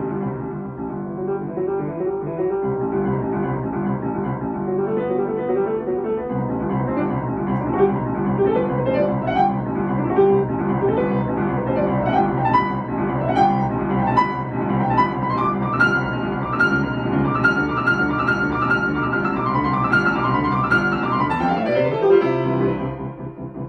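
Solo grand piano playing classical music: dense chords under rising runs that climb into the upper register, then a fast descending run near the end.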